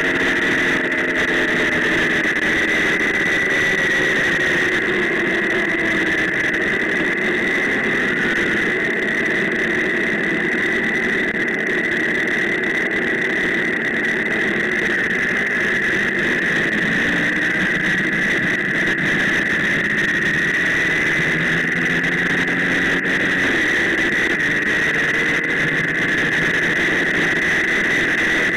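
A vehicle engine running at road speed on a wet road, its note sliding down and climbing again several times, under steady road and wind noise with a constant high whine.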